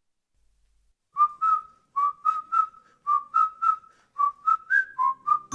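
After about a second of near silence, a whistled tune of short, clear notes, mostly in quick pairs, opens a pop song used as background music.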